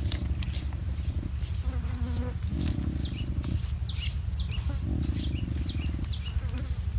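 A buzzing sound that swells for about a second roughly every two seconds over a steady low hum, with short high chirps like small birds in between.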